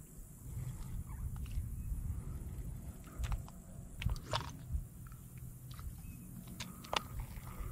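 Rustling and crunching with scattered sharp clicks over a steady low rumble, the loudest clicks about three, four and seven seconds in.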